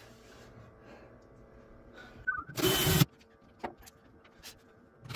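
A brief whir of a small electric motor, about half a second long, roughly two and a half seconds in, with a few light clicks from handling afterwards.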